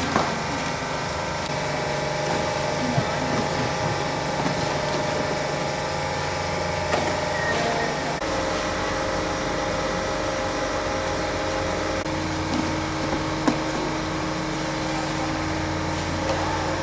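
Calibrex Novagram+ electronic fruit sorting machine running with peaches: a steady mechanical hum of several held tones, with a few light knocks. The low hum changes about halfway through.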